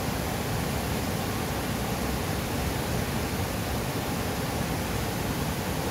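Fast-flowing monsoon river rushing past: a steady, even hiss of water.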